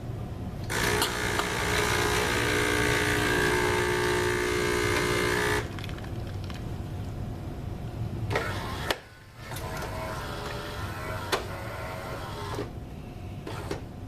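Solis Master 5000 super-automatic espresso machine working through a cycle as it is tested: a loud, steady mechanical whir for about five seconds, then quieter machine noise with a couple of sharp clicks.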